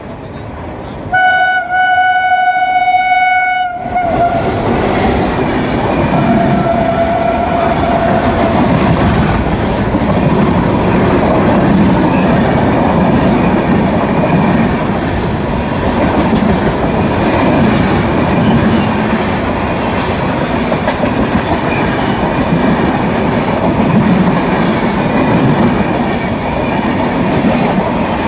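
Indian Railways WAP-7 electric locomotive sounding its single-note horn in one blast of about two and a half seconds, then a fainter, shorter blast. The train then passes close by with a steady rush and clickety-clack of its coaches.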